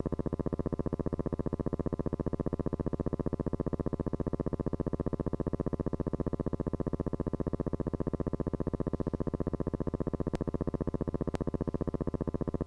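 Steady electronic-sounding buzz pulsing rapidly and evenly, with two faint clicks about a second apart near the end.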